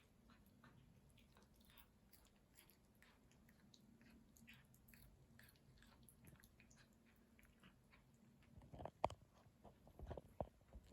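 A cat chewing and biting catnip, heard as faint crunchy chewing clicks, with a few louder crunches near the end.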